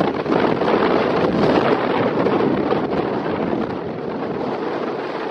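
Jet engines of a Boeing 767-300 on the runway: a steady, deep roar that slowly eases toward the end, mixed with wind on the microphone.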